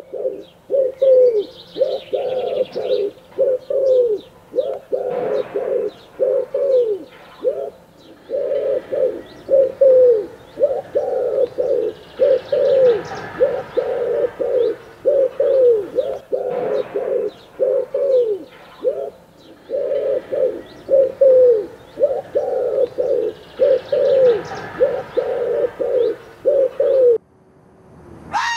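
A bird's low cooing notes, repeated about twice a second in short groups, with faint higher chirps of other birds behind.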